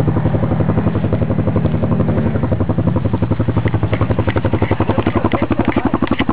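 ATV engine running at idle close by, a rapid, even thumping pulse that holds steady throughout.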